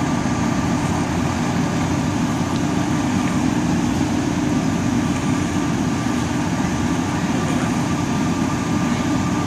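Fire engine's diesel engine running steadily, a constant low rumble with a faint steady high whine over it.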